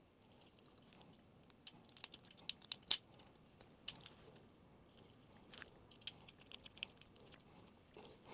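Faint, scattered light clicks and taps of a small screwdriver and wire ends against a plastic drill trigger switch as the wires are fitted into its screw terminals, in two clusters a few seconds apart.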